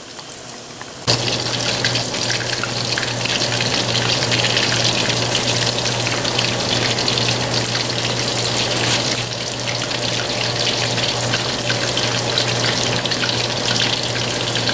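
Hot oil sizzling and crackling around flour-breaded chicken pieces deep-frying in a wok. The sizzle jumps suddenly louder about a second in and then carries on steadily.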